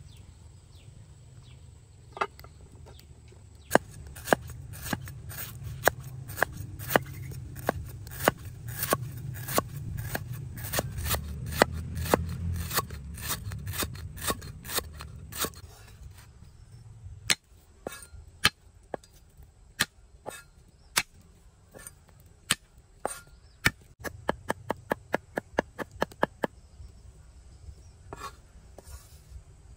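Steel cleaver chopping on a thick wooden chopping block, slicing lemongrass: steady sharp knocks about once or twice a second over a low rumble. Later the knocks thin out, then come in a quick run of rapid chops as garlic is minced.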